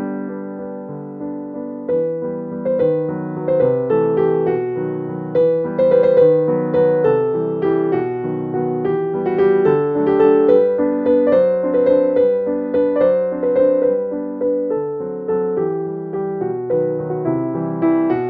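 Background piano music, notes struck one after another in a steady flowing rhythm.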